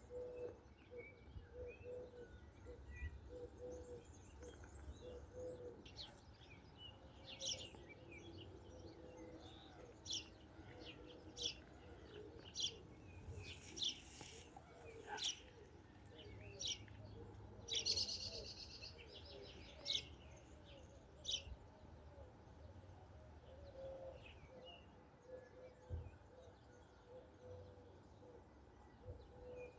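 Songbirds chirping in short, sharp, high notes, busiest from about six to twenty seconds in, over a dove's low, repeated cooing. Faint.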